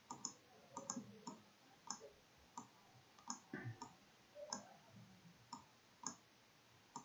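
Computer mouse buttons clicking, quiet and irregular: about fifteen sharp clicks, several in quick press-and-release pairs, as an ellipse is drawn and placed in a drawing program.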